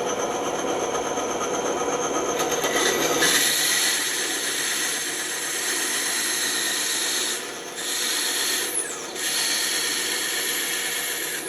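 Bandsaw running, its blade cutting through wood. The rasping cut gets loud about three seconds in and eases off twice for a moment partway through.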